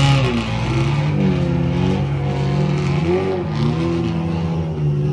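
Car engine revving, its pitch rising and falling several times over a steady running note.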